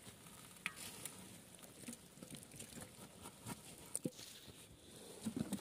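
Faint, irregular patter of many small live fish wriggling and flapping against each other, with a few sharper ticks.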